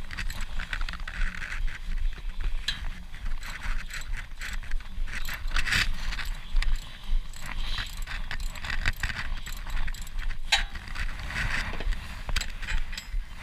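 Hand wrench working a brake caliper bolt: irregular metal clicks, rattles and scrapes of the tool on the bolt.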